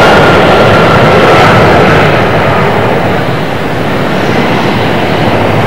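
Antonov An-225 Mriya's six Lotarev D-18T turbofans as the aircraft passes overhead: loud jet roar with a high whine that slowly falls in pitch over the first two seconds or so, after which the roar eases a little.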